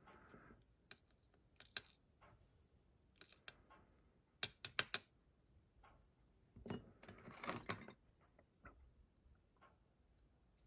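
Small metal pins and parts of a disassembled Zeiss Ikon lock cylinder clicking and clinking as they are handled, in several short clusters of light taps and rattles, the longest about two thirds of the way through.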